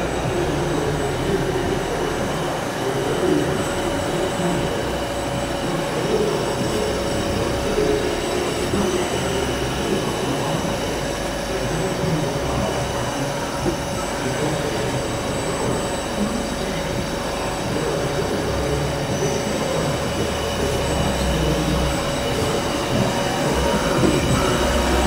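Hardinge Quest GT27 CNC gang lathe running under power: a steady mechanical hum and hiss with a constant whine, growing a little louder near the end.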